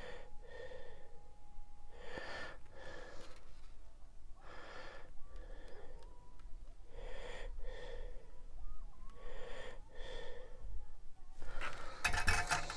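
A person breathing close to the microphone, soft in-and-out breaths every two to three seconds, with a brief clatter near the end.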